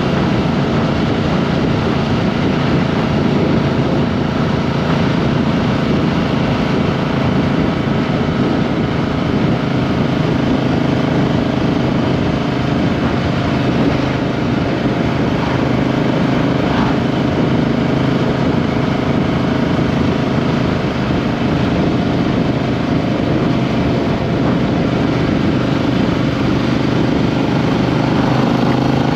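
Triumph Street Twin's 900 cc parallel-twin engine running steadily while riding, heard close from under the seat, with the engine note wavering only a little in pitch, over road and wind noise.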